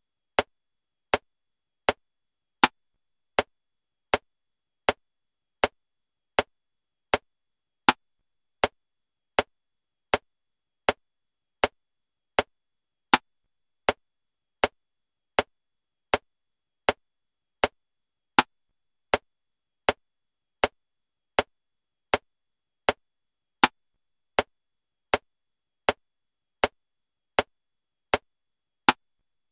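Metronome clicking at 80 beats per minute in 7/4 time: a sharp click every three-quarters of a second, with a louder accented click on the first beat of every seven.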